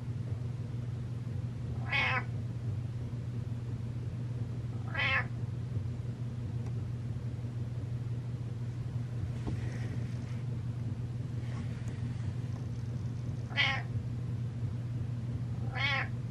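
Domestic cat meowing four times, short calls spaced a few seconds apart, the last two closer together. A steady low hum runs underneath.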